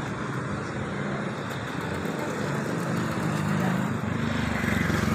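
Road traffic with a motorcycle's small engine running close by, its steady hum growing louder over the last second or so.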